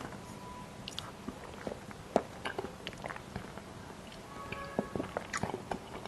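Close-up mouth sounds of someone biting and chewing sweets: a run of irregular sharp wet clicks and crunches.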